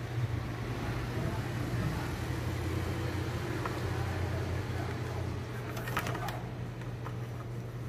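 A steady low mechanical hum, with a few light clicks about six seconds in as the wire and metal tube are handled.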